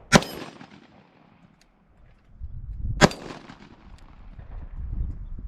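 Two 10mm pistol shots from a Sig Sauer P320 X-TEN firing 170-grain full metal jacket ammunition, about three seconds apart, each a sharp crack with a short tail.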